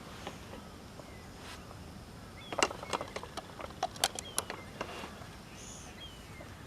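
A quick, irregular run of sharp clicks and snaps lasting about two and a half seconds, starting just before the middle, over a steady background hiss, with a few faint short chirps.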